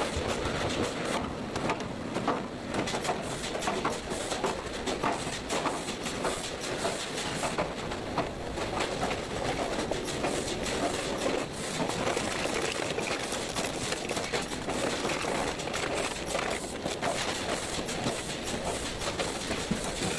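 Machinery on a burger patty production line running: conveyor belts and processing machines making a steady noise full of rapid clicks and knocks.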